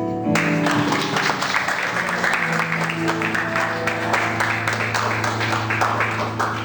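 Music with held low notes, and an audience clapping over it from just after the start.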